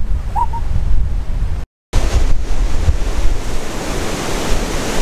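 Strong wind buffeting the microphone: a loud, gusting rumble. It drops out completely for a moment about two seconds in, then carries on.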